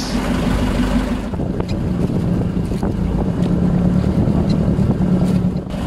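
Outrigger fishing boat's engine running steadily under way, with wind buffeting the microphone and water rushing past the hull.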